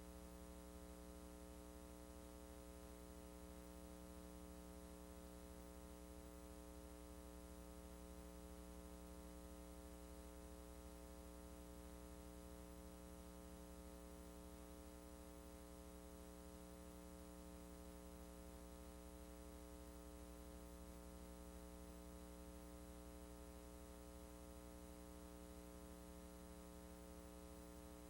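Faint, steady electrical mains hum with light hiss and nothing else: the blank audio track of a VHS transfer that carried no sound.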